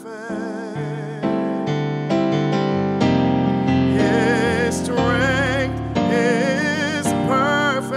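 Keyboard played in a slow worship ballad: piano-voiced chords struck in turn under a sustained melody with heavy vibrato, growing louder about a second in and again a few seconds in.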